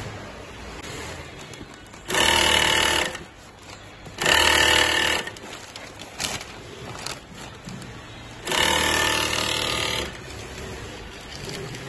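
Industrial sewing machine stitching in three quick loud runs, each about a second long, with the last a little longer. Between the runs there is a lower hum of machinery.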